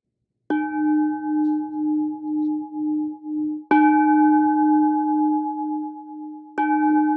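Brass singing bowl struck three times with a wooden mallet, about three seconds apart, the first about half a second in. Each strike rings on in a low hum with higher overtones, the hum wavering in a slow pulse. The bowl is rung to close the meditation session.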